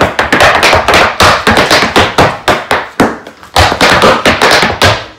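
Irish dance hard shoes beating out treble reel steps on a hard floor: a fast run of sharp clicks and stamps, with a short break about three seconds in.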